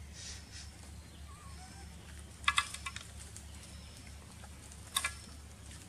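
Sharp clicks or taps over a steady low hum: a quick cluster about two and a half seconds in and a single click near five seconds.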